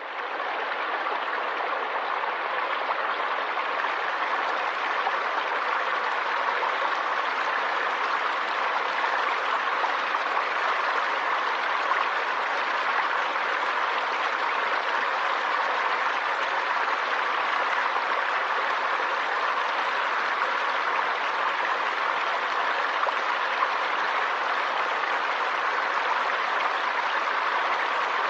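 Steady rushing of flowing river water, an even unbroken hiss with no separate splashes. It fades in over about the first second.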